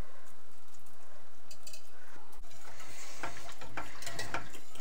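Wire whisk stirring flour into simmering gravy in a metal saucepan to thicken it, with a few faint ticks of the whisk against the pan over a steady low hiss.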